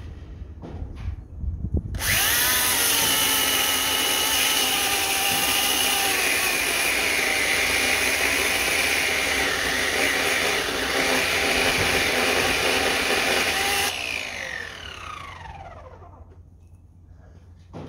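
Oregon CS1400 corded electric chainsaw starting about two seconds in and running at full speed as it cuts through a log stump, its pitch sagging for a moment under load. Near the end the trigger is released and the motor winds down with a falling whine.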